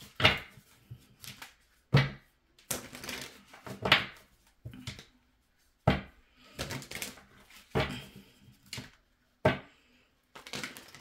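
Tarot cards being handled on a table: a series of sharp, irregular slaps and clicks as cards are shuffled and laid down, the strongest coming about every two seconds.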